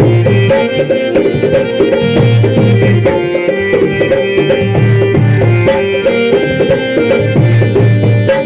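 Loud music with fast, dense drumming over held melodic notes and a steady bass line, in the style of Indian traditional or folk music.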